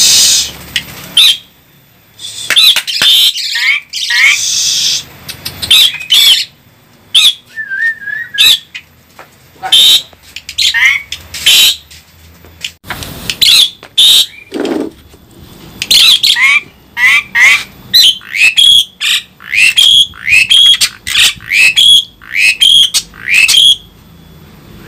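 Asian pied starling (jalak suren) calling loudly and over and over: harsh squawks mixed with whistled notes that slide down in pitch. The calls come in quick runs, thickest in the second half.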